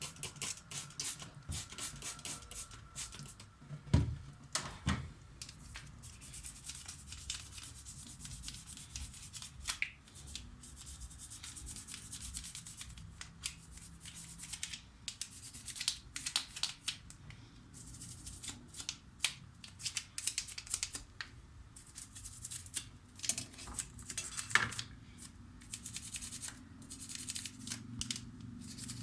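Toothbrush scrubbing a dishwasher part in quick, irregular scratching strokes, with a few knocks of the part being handled, the loudest about four seconds in.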